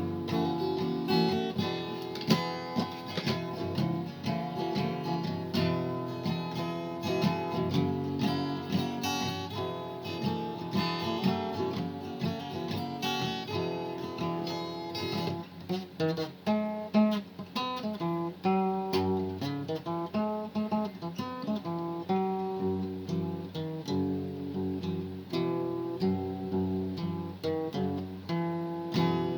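Acoustic guitar being played solo, strummed chords mixed with picked single-note runs.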